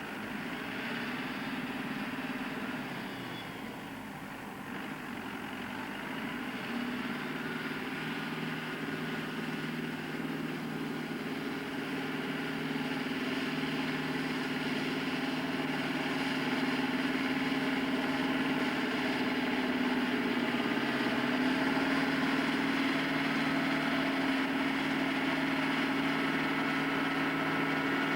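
Farm machinery's diesel engine running steadily at a constant pitch, growing gradually louder over the first half and then holding.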